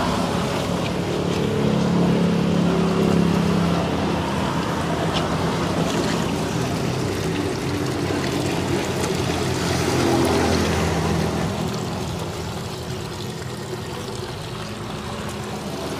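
Water trickling and splashing as a man's soapy head and body are washed and scrubbed by hand, over a steady low mechanical hum like a running motor.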